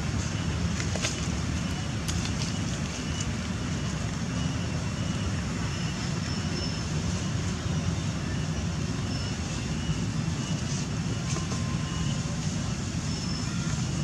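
Steady outdoor background rumble of distant road traffic, with faint short high tones now and then.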